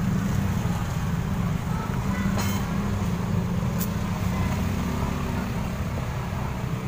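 A steady low engine drone, with a couple of sharp clicks about two and a half and four seconds in.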